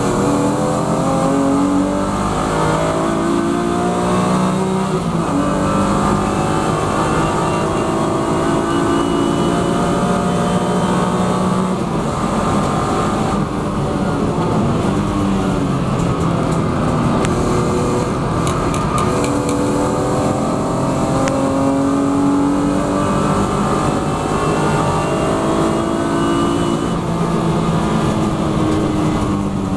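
BMW E36 M3 Evo racing car's straight-six engine heard from inside the cabin, pulling hard at full throttle out of a corner. Its pitch climbs through the gears, dropping back at each of several upshifts, over steady tyre and wind noise.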